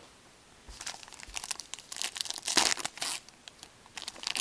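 Card pack wrapper crinkling and tearing as a hockey card pack is opened by hand. The crackling starts under a second in, is loudest in the middle, pauses briefly and picks up again near the end.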